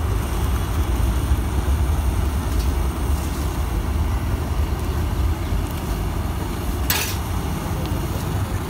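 Steady low rumble of roadside traffic, with one sharp click about seven seconds in.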